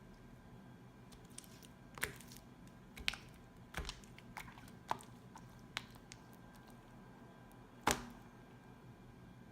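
Sticky glue-and-borax slime being handled and punched: a scattering of short, sticky clicks and pops at irregular intervals, the loudest about eight seconds in.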